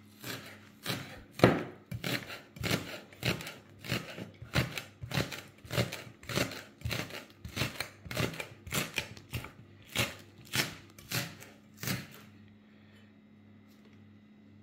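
Chef's knife chopping green onions on a wooden cutting board: about twenty even strokes, a little under two a second, stopping about twelve seconds in.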